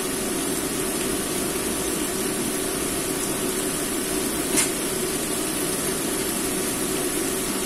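Steady hiss and hum from the stove as fish heads and long beans cook in a wok, with a single short click about four and a half seconds in.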